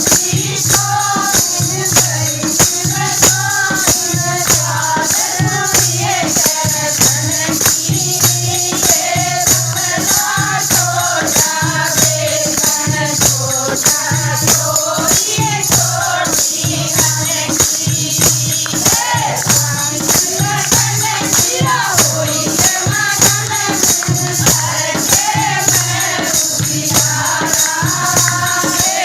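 Hindi devotional bhajan: voices singing a melody over a steady, even beat of jingling hand percussion.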